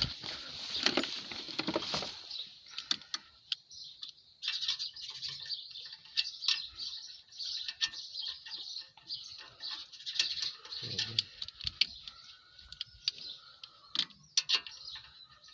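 Scattered metallic clicks and clinks of hand tools being handled at the brake caliper, over steady birdsong.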